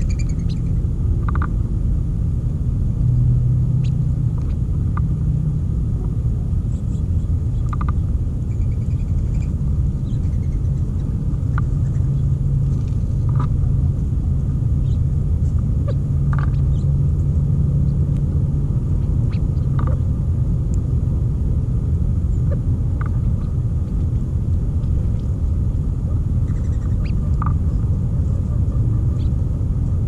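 Steady low rumble throughout, with short bird chirps scattered over it every second or two.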